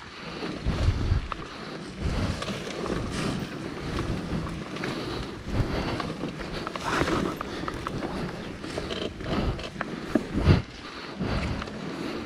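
Honda Tornado 300cc trail motorcycle being ridden on a muddy trail. The engine runs under heavy wind buffeting on the action camera's microphone, with irregular knocks and thumps from the rough ground.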